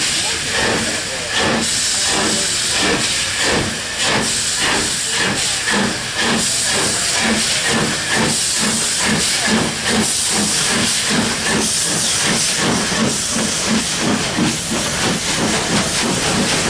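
Steam locomotive hissing loudly, with a regular beat of puffs about three a second.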